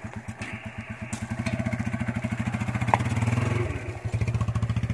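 Motorcycle engine idling with an even thumping beat of about ten pulses a second, getting a little louder about a second in, with a short click near the middle.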